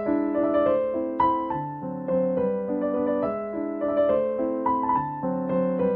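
Background piano music: a gentle melody of struck notes over held chords.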